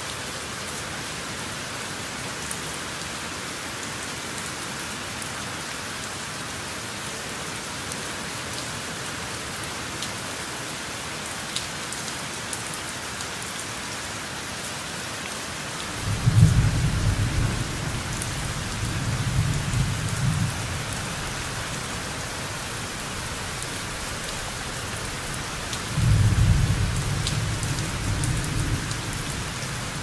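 Steady rain with scattered drips, and two low rumbles of thunder: one about halfway through that trails off over several seconds, and a shorter one near the end.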